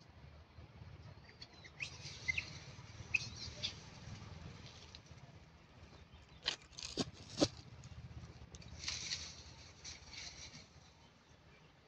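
Rustling of monkeys moving over dry, rotting bark, with three sharp cracks or snaps close together about six and a half to seven and a half seconds in. A few short high chirps sound around two to three seconds in.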